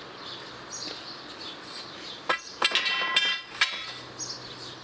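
Hard objects knocking and clinking as a cluttered workshop corner is cleared, a cluster of sharp knocks about halfway through, one of them leaving a short metallic ring, over a faint steady hiss.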